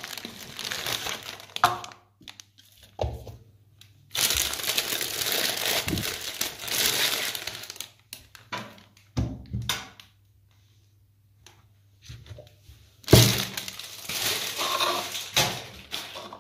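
Aluminium foil wrapping crinkling as it is pulled off and handled around a large hollow chocolate egg, in several bursts with short pauses, mixed with a few knocks of the egg being set down and handled, the loudest about 13 seconds in.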